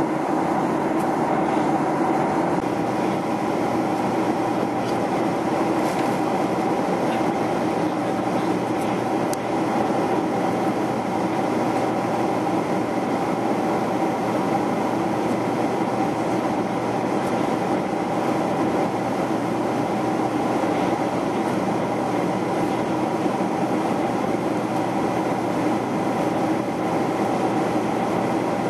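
Steady in-flight cabin noise of an Airbus A330-300 heard at a window seat beside the engine: an even roar of the turbofan engines and the airflow over the fuselage, with a steady low hum under it.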